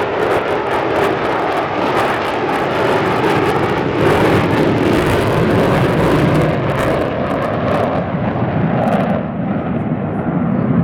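Fixed-wing aircraft engine noise, loud and steady, as a plane flies a display pass. Its hiss fades near the end as it moves away.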